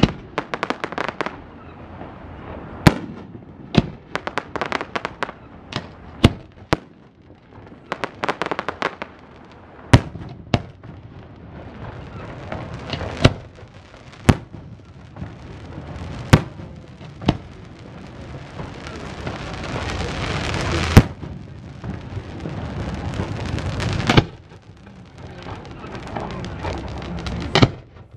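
Aerial firework shells bursting in a display, with sharp loud bangs every one to three seconds. In the first half, runs of rapid crackling from crackle effects fill the gaps between bangs. In the second half a hissing rumble swells up twice between the bangs.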